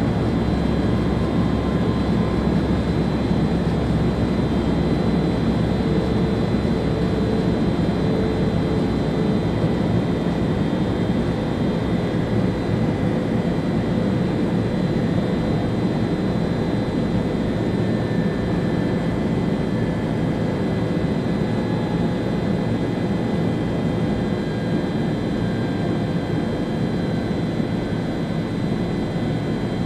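Steady rumble and rolling noise of an ÖBB Railjet high-speed train running at speed, heard from inside the driver's cab, with faint steady high whines over it.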